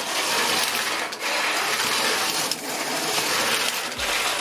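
Brick-built steam locomotive model with Power Functions motors running at full speed over plastic track and points: the motors whir and the wheels roll on the plastic rails. It is a continuous noisy sound with short dips about every one and a half seconds.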